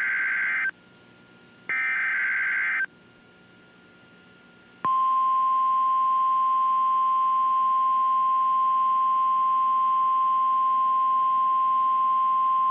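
Emergency Alert System SAME digital header: the end of one harsh, buzzy data burst and then a second one about a second and a half in, encoding the tornado warning. A pause follows, then about five seconds in the NOAA Weather Radio warning alarm starts, a single steady pitched tone, the signal that an emergency warning message is about to follow.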